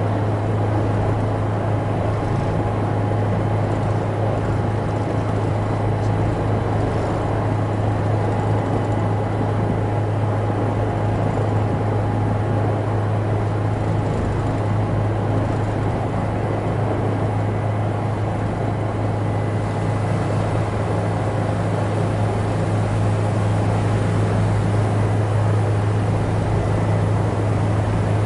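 Helicopter cabin noise in flight: a steady, loud low drone of engine and rotor, with a faint steady higher whine over a noisy rush.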